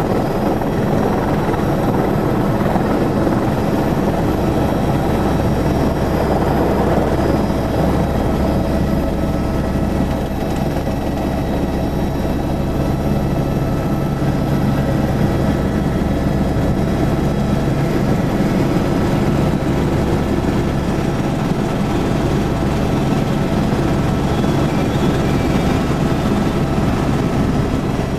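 Helicopter's engine and rotor noise, a loud steady drone with a low, fast rotor beat underneath and a few steady whining tones above it.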